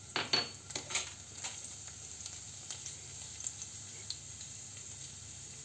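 Chopped garlic and a bay leaf sizzling in hot mustard oil in a pan. A few sharp crackles come in the first second and a half, then it settles into a steady sizzle.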